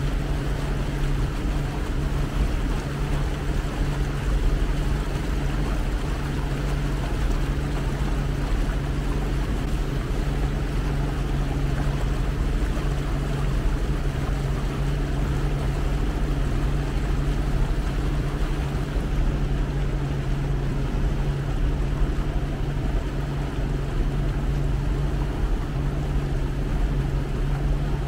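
Motorboat engine running at a steady speed, a low drone with a rushing hiss above it.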